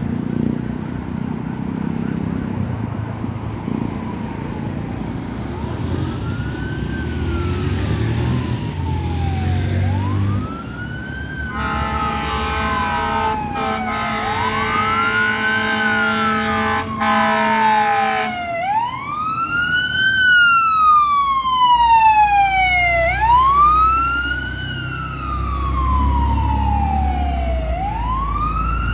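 Fire engine's electronic wail siren rising and falling about every four and a half seconds, growing louder as the truck approaches. A horn sounds one steady note for about seven seconds in the middle, and car and motorcycle engines pass at the start.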